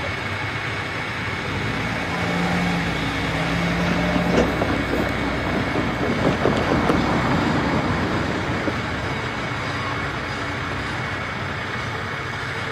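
Diesel railcar engine of a Kyoto Tango Railway train running steadily. It grows louder about a third of the way in, with a few knocks and clacks, then eases back to steady running.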